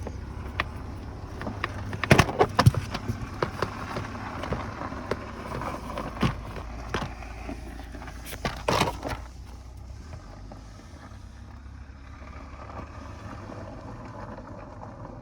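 Irregular clicks and knocks of hands and tools working on plastic dashboard trim and fasteners, in clusters about two seconds in and again near nine seconds, over a steady low hum.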